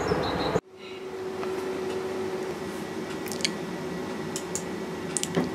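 Outdoor background noise cuts off abruptly under a second in, giving way to indoor room tone with a faint steady hum. In the second half come three pairs of light computer-mouse clicks, each a press and release.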